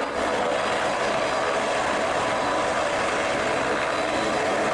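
ATR 72 turboprop taxiing, its engines and propellers making a steady drone with a hum running through it.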